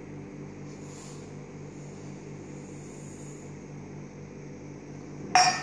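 Steady electrical hum with faint hiss, and one sharp metallic clink near the end, a steel cup knocking against the steel pot or the counter.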